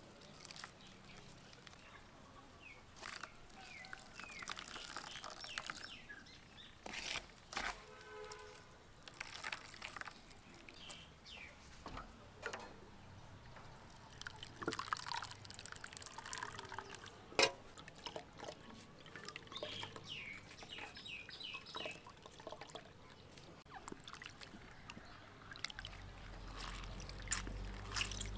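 Hands squeezing wet grated coconut to press out coconut milk, with liquid dripping and trickling back into a metal bowl. Later the coconut milk is poured through a wire mesh strainer into a bowl.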